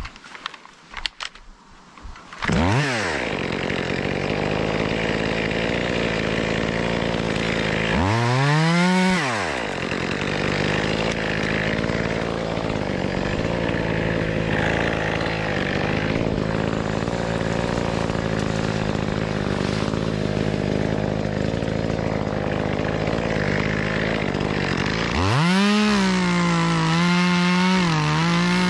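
Echo CS-2511TES small two-stroke top-handle chainsaw starting about two and a half seconds in, then running steadily. It is revved up and back down once around eight seconds in, and revved up again near the end.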